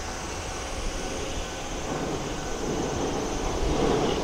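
Shizuoka Railway 1000 series electric train running across a steel girder bridge, heard from a distance. The rumble of wheels on rail grows louder over the last second or two.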